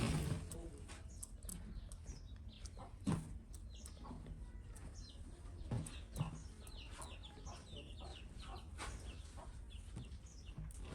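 Pet monkey grooming a cat with its mouth: a busy run of small lip-smacks and clicks, mixed with short high chirps and a few dull thumps about three and six seconds in.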